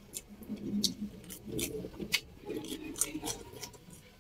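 Eating sounds: chopsticks clicking against a ceramic rice bowl and clay pot, with soft chewing. There are about eight sharp, irregular clicks.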